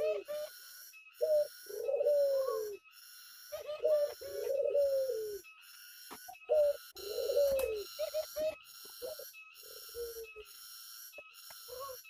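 Ringneck doves cooing. Each phrase is a short note followed by a longer, falling rolling coo, repeated four times at intervals of two to three seconds, then softer, shorter coos near the end. A high, even pulsing buzz, about two pulses a second, runs underneath.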